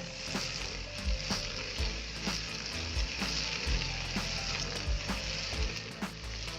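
A steady crackling hiss over background music with a low beat about twice a second.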